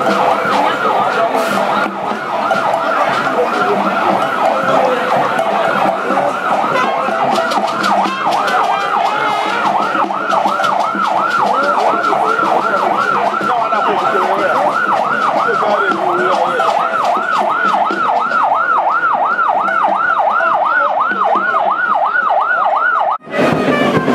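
A siren-like tone warbling rapidly up and down, about three times a second, over crowd noise, cutting off near the end.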